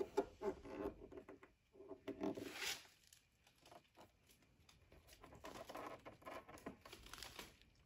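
Faint, irregular rustling, scratching and light tapping handling noises, with a few sharp clicks scattered through.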